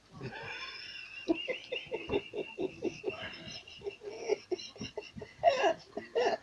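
Short chuckling laughter, about four pulses a second, from a little over a second in. In the first three seconds a pet parrot whistles a high, wavering note over it.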